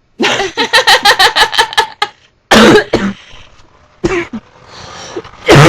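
A woman laughing in quick bursts, followed by a loud, throaty human belch.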